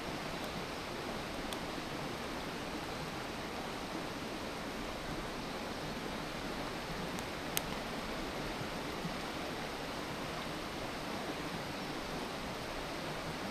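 Wood campfire burning: a few sharp crackling pops, the loudest about seven and a half seconds in, over a steady even hiss.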